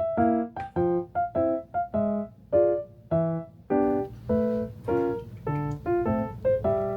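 Gentle background music on a piano-like keyboard: short, quickly fading chords and notes in a steady, easy rhythm.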